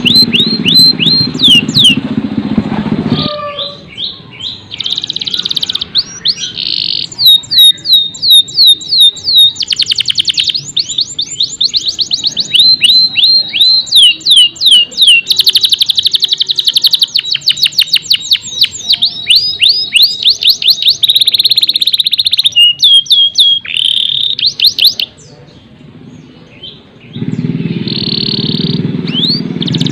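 Domestic canary singing a long song of fast trills, runs of rapidly repeated down-slurred notes with brief breaks. A low steady sound lies under the song at the start and again near the end.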